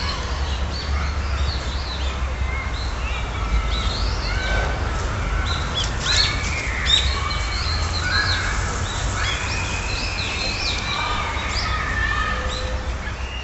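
Several birds chirping and calling, short notes that rise and fall and overlap one another, over a steady low rumble.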